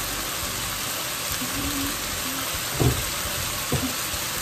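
Chicken pieces, onion, garlic and ginger sizzling steadily in oil in a frying pan, with a couple of brief low thumps about three seconds in.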